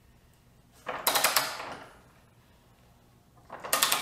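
Ratchet wrench turning a bolt into a wooden post: two short bursts of rapid clicking, about a second in and again near the end.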